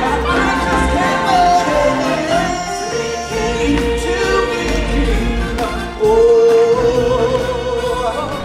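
Live stage-show music: a choir of singers holding long, wavering notes over a heavy bass, swelling louder about six seconds in on a long held note.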